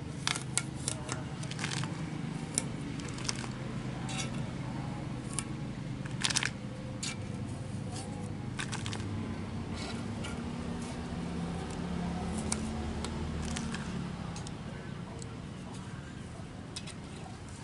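Craft-knife blade clicking and scraping on glass as pieces of vinyl stencil are lifted and peeled off. Irregular sharp clicks with a few short scratchy bursts, over a steady low hum.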